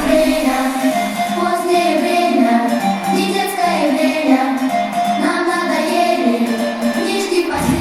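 Live concert music: high voices singing a melody over an instrumental accompaniment. Deep bass comes in near the end.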